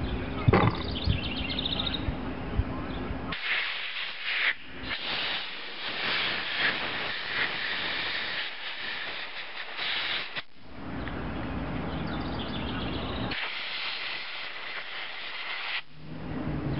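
Compressed-air blow gun hissing as it blows dirt off the outside of a small-engine carburetor, in two long blasts: one of about seven seconds, then a shorter one of about two and a half seconds. A few knocks of the carburetor being handled come before the first blast.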